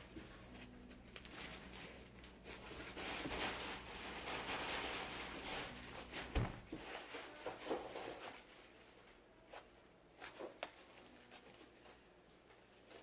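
Slime mixed with foam beads being squished and stretched by hand: an irregular sticky crackle of many small clicks, busiest in the middle, with one sharp knock about six seconds in.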